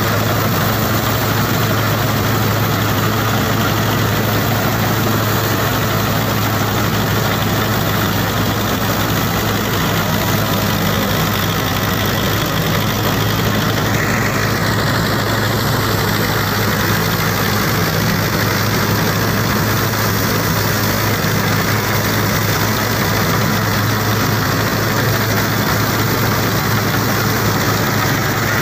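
Powertrac Euro 50 tractor's diesel engine running steadily under load, driving a Jagatjit straw reaper through the PTO, with the reaper's machinery running along with it.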